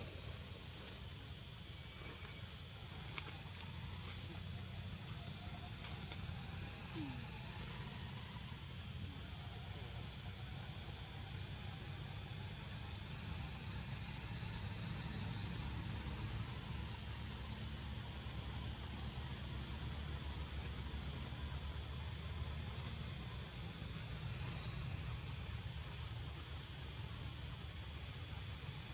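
Steady high-pitched drone of an insect chorus, its level shifting slightly now and then, over a low rumble.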